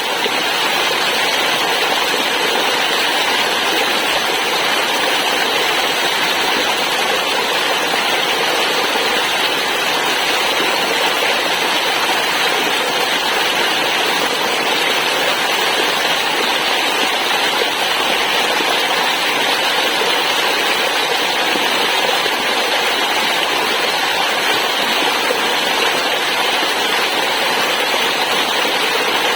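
Waterfall: water pouring steadily, an even, unchanging rush of noise.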